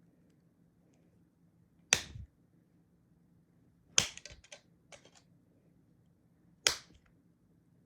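A plastic phone back cover being slapped and pressed onto the phone, four sharp snaps with a quick run of smaller clicks after the second. The cover fails to latch over a battery said to be too bloated.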